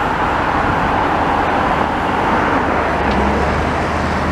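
Steady road traffic noise, with a vehicle's low engine hum growing stronger about three seconds in.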